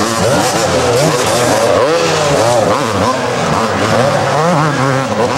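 A pack of two-stroke supercross dirt bikes racing, several engines revving up and down over one another.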